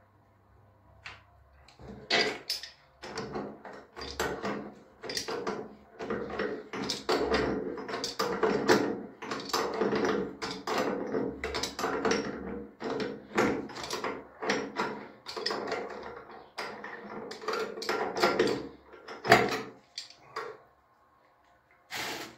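Pipe wrench and metal tap fittings clicking, scraping and clanking as the new nut on a sink mixer tap is worked tight: a long run of quick small knocks and rattles, with one sharp knock a little before the end.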